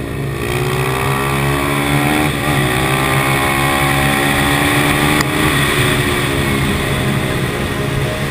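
JMC 140 MX pit bike's single-cylinder four-stroke engine accelerating hard, its pitch climbing and then dropping at upshifts about two seconds in and again about five seconds in, heard from the rider's helmet.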